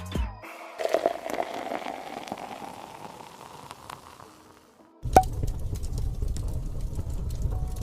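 Carbonated cola fizzing, a hiss that starts just under a second in and fades away over about four seconds. About five seconds in, music with a steady low beat starts, with a sharp click at its start.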